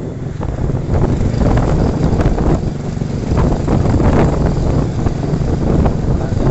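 Wind buffeting the microphone: a steady low rumble with irregular faint knocks.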